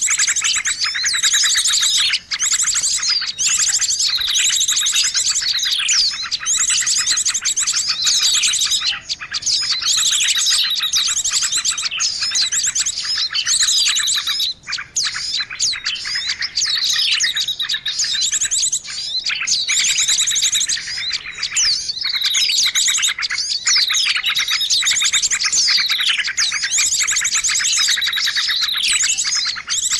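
Bird-lure recording of many small birds calling at once: a dense, unbroken racket of high chirps, fast trills and quick falling whistles, overlapping throughout.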